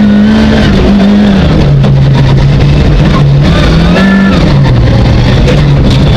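Rally car engine heard from inside the cabin, revving up and down under hard driving. Its pitch drops about one and a half seconds in, climbs again around four seconds, then drops once more.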